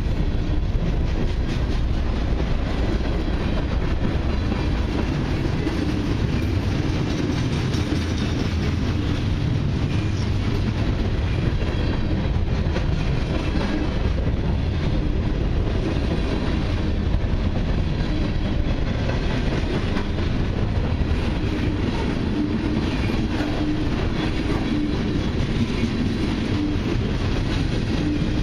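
Freight cars of a long mixed freight train rolling past, covered hoppers and then lumber-laden centerbeam flatcars: a steady rumble of steel wheels on rail with scattered wheel clicks.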